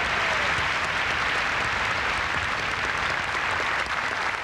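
Audience applauding, a dense steady clapping that welcomes a speaker to the podium.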